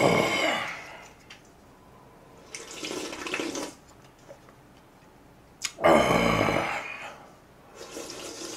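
A person slurping broth straight from the rim of a wide pan. There are three drawn-out slurps: loud ones at the start and about six seconds in, and a softer one around three seconds in.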